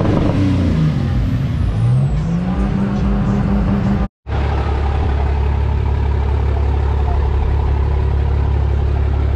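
Lifted pickup trucks' engines as the trucks drive slowly past. In the first few seconds the engine pitch dips and then rises as one truck pulls away. The sound cuts out for a moment about four seconds in, then a steady, deep engine drone follows from a pickup passing close.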